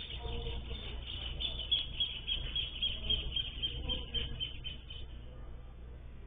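Small birds at a feeder chirping in a quick, even run of high notes, about three or four a second, that stops about five seconds in.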